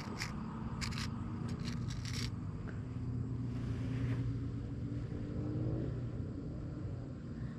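An engine drones steadily in the background, its pitch rising a little around five seconds in. A few sharp clicks and scrapes come in the first two seconds.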